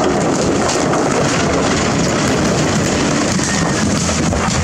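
A load of large boulders sliding off a tipping dump truck bed and tumbling onto the ground, a continuous rumble of many rock impacts that eases near the end, over the truck's engine running.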